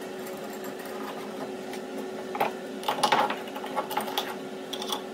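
A steel C-clamp knocking and scraping against a galvanized steel pipe as it is fitted over the pipe and tightened down to the bench, a cluster of short clinks and clatters in the second half. A steady faint hum lies underneath.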